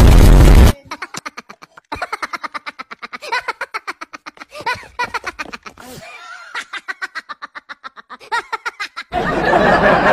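Long run of rapid laughter in quick repeated 'ha-ha' bursts, with a short break midway. It comes after a very loud burst of noise at the very start, and another loud noise cuts in near the end.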